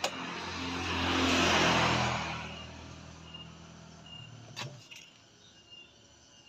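A motor vehicle passing by, its engine noise swelling to a peak and fading within the first two and a half seconds. About four and a half seconds in there is a single sharp knock, then a fainter one.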